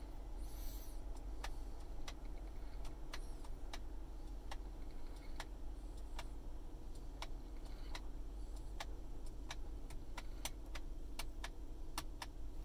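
About twenty quick plastic clicks, one to two a second at an uneven pace, from the climate-control TEMP button of a Lexus GX470 being pressed over and over to step the temperature setting up. Under them runs a steady low hum.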